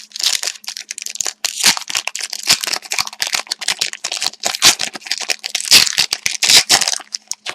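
Hockey trading cards being handled and flipped through: a quick, dense run of card-stock rustles and flicks that stops shortly before the end.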